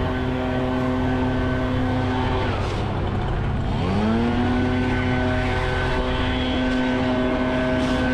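Chainsaw running at full throttle. About three seconds in it is let off briefly, its pitch sliding down, then it is revved back up to the same steady high pitch.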